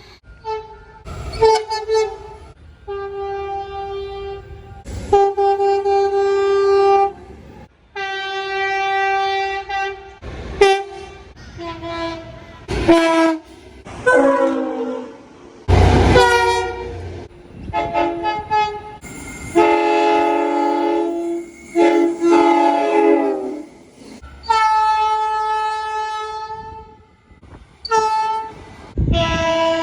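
A run of train horn blasts from different trains, each a held multi-note chord lasting one to four seconds, with sudden breaks and clicks between them. One blast glides down in pitch.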